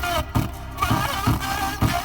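Music with a steady beat, about two beats a second, playing through a car's multimedia sound system.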